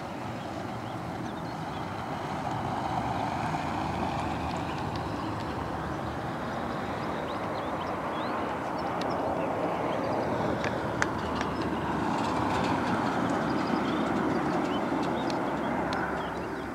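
Jet engine noise of an Airbus A330 on final approach: a steady rumble and whine that swells as the airliner comes closer. A single sharp click sounds partway through.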